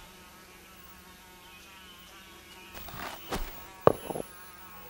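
Insect buzzing, a steady wavering hum. About three seconds in come a few light knocks and scrapes as a small object is set against a wall.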